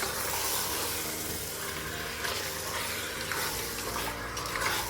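Mutton pieces sizzling in hot onion-tomato masala in a pressure cooker as they are stirred, a steady hiss with a few scrapes of the spoon against the pot.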